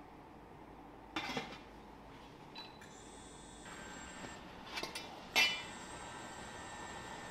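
Light clinks of porcelain cups on a stainless steel steamer tray, then the steamer's domed stainless lid lifted off with a louder metallic clank about five seconds in, ringing briefly afterwards.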